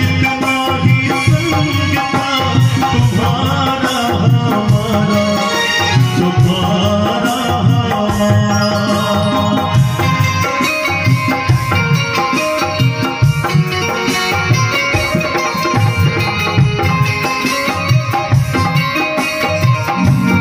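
Live Indian devotional (bhajan) music: a dholak drum keeps a steady rhythm under harmonium and a keyed Indian banjo (bulbul tarang).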